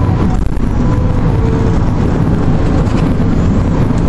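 Steady low rumble of a car's road, engine and wind noise heard from inside the cabin at highway speed.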